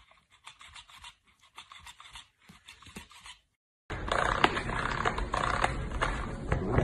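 A dog gnawing and licking a plush toy: a quick run of soft scratchy clicks. After a brief gap, a much louder, noisier stretch with a couple of sharp hits as a puppy paws at a spring doorstop.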